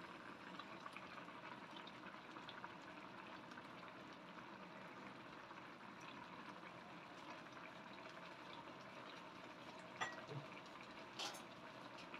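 Broth simmering in a stainless-steel wok, a faint steady bubbling, with beaten egg setting in it. A sharp click about ten seconds in and a short rustle a second later.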